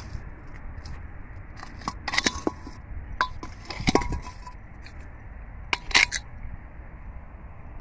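Hollow fired-clay bricks clinking and knocking as they are pried up and shifted with a wooden stick. There are four brief clusters of sharp clinks, each with a short ring.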